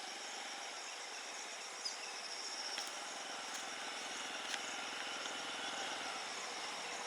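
Insects chirping steadily in a high, pulsing drone over outdoor hiss, with a few sharp clicks around the middle.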